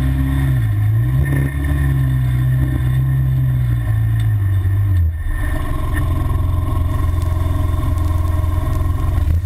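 Side-by-side UTV engine running, its revs rising and falling repeatedly as the machine is driven through mud.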